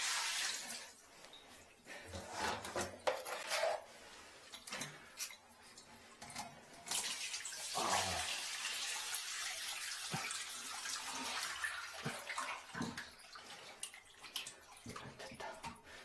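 Water splashing and running out of a one-piece porcelain toilet as it is worked loose and lifted off the floor drain, with knocks and scrapes along the way. The water runs steadily from about seven seconds in to about fourteen.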